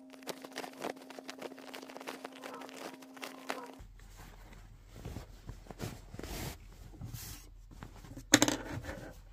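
Fabric rustling and scrunching, with many small scratchy clicks, as a drawcord on a bodkin is worked through the stitched channel of a fabric drawstring bag. A brief louder sound comes near the end.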